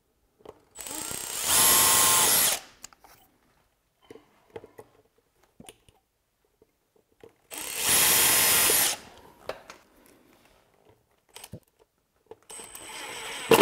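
Power drill boring two holes through an aluminum boat transom for a transducer mounting bracket: two runs of about two seconds each, several seconds apart, each starting slower and then speeding up. Another power tool starts up near the end.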